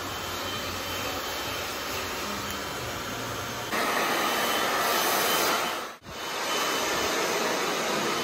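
Handheld hair dryer blowing, a steady rush of air. It gets louder about four seconds in, with a short dropout about six seconds in.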